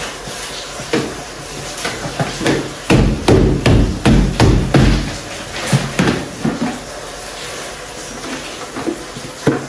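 Hard knocks from kitchen containers and groceries being handled on the counter: a quick run of strikes, about three a second, from about three to five seconds in, then a few single knocks later.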